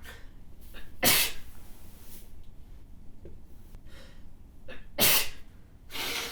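A woman sneezing twice, about four seconds apart. Each sneeze is a sudden loud burst led by a short catching breath, part of a fit of sneezes she can't stop. Heavy breathing starts near the end.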